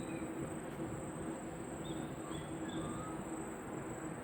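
Insects trilling steadily at a high pitch, with a few short bird chirps over it and a low steady hum underneath.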